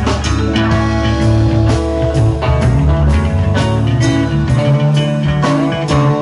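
Live rock band playing: electric guitars, keyboard, bass and drum kit, with drum hits about twice a second. The low bass notes drop away about four and a half seconds in.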